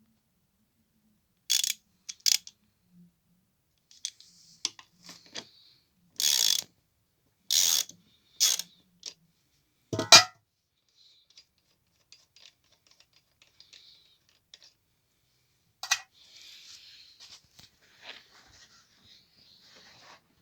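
Metal tools and parts being handled: a series of short mechanical clicks, rasps and knocks, with one loud knock about ten seconds in and lighter scraping near the end.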